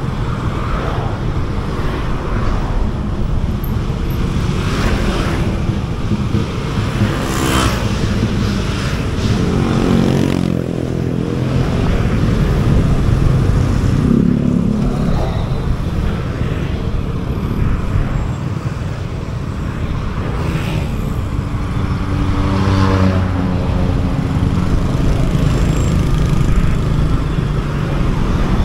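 Motorcycle riding in city traffic: steady engine and road rumble, with other vehicles around it. An engine note rises and falls about ten seconds in and again past twenty seconds.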